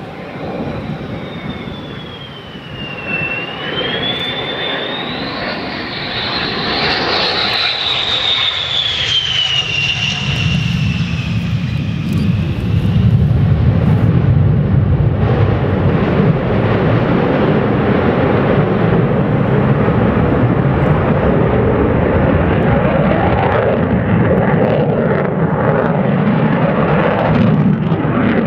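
An F-111's twin TF30 turbofan jet engines flying past: a high turbine whine that glides down, up and down again in pitch. From about ten seconds in, a loud, steady low rumble takes over.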